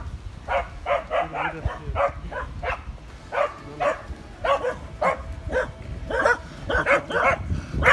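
Welsh corgis barking: short, sharp barks in quick irregular succession, two to three a second, starting about half a second in.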